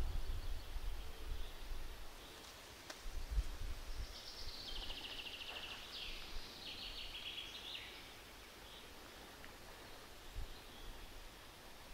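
Forest ambience: a songbird sings two quick trilled phrases of rapid notes a few seconds in, over faint background hiss. Low rumbling comes in the first few seconds.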